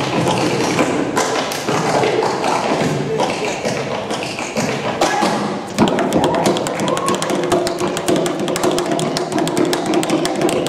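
Shoes tap-dancing on a wooden tabletop: a fast run of taps and stamps starting about halfway through, over background music.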